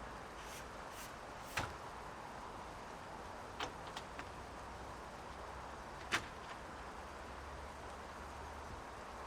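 Steady rushing of a mountain river and rain, with a few sharp taps scattered through it, the loudest about six seconds in.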